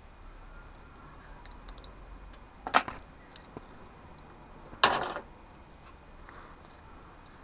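Small handling clicks and two short, loud clatters about two seconds apart, from parts of a CD/DVD drive being handled and put down during dismantling.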